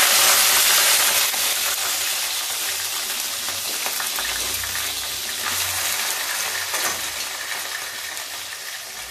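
Cut raw potatoes sizzling in hot oil in a steel kadhai, the hiss loudest just after they go in and slowly dying down.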